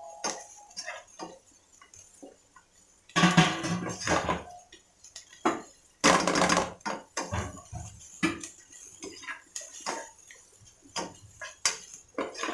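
Spatula scraping and knocking against a nonstick pot while stirring soybean keema mince as it sautés in oil, in a run of short scrapes, with two longer, louder scraping passages about three and six seconds in.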